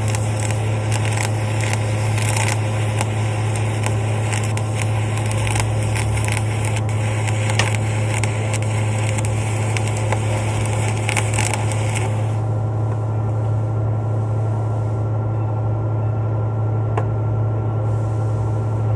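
Electric arc welding: the arc crackles and sputters steadily as a hardfacing bead is run, over the steady hum of the welding machine. About twelve seconds in the arc stops, and only the machine's hum goes on.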